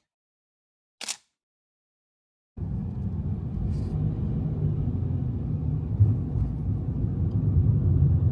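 A brief short noise about a second in, then a steady low rumble of a car on the road that starts suddenly about two and a half seconds in.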